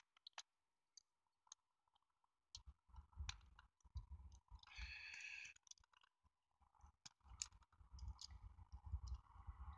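Faint, scattered clicks and light knocks of small plastic N-gauge model train parts being handled and fitted together, with a brief soft hiss about five seconds in.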